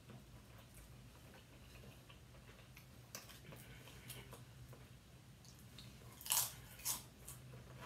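Quiet chewing and small mouth clicks of people eating potato chips and a sandwich. Near the end come two loud crisp crunches, about half a second apart, as chips are bitten.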